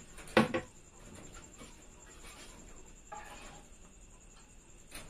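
Wooden cricket bats being handled and laid on a digital scale: a sharp wooden knock about half a second in, then a few faint knocks and a soft rustle.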